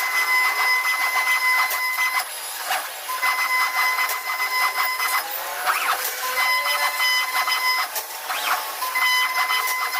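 CNC wood router working: its drive motors whine in a steady tone that stops and starts every second or two, with short rising and falling pitch glides as the axes speed up and slow down, over a continuous high hiss with scattered clicks.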